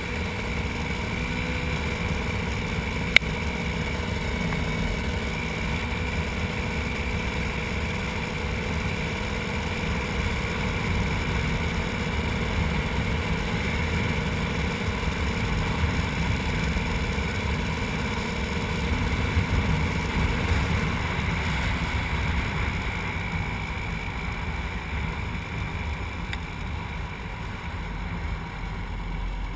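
KTM 300 EXC two-stroke single-cylinder enduro engine running steadily under way at road speed, heard from the handlebars. A single sharp click comes about three seconds in, and the engine eases off slightly in the last few seconds.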